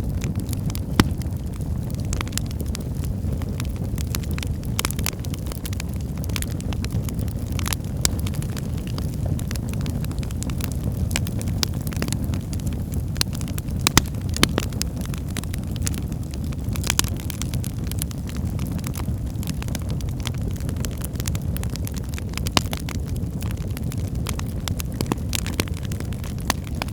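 Wood fire burning in a fireplace: a steady low rumble of flames with irregular crackles and pops from the burning logs, a few sharper pops standing out.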